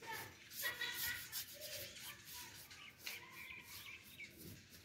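A small paintbrush swishing in short strokes as red paint is brushed onto a pot, with a light chirping in the background.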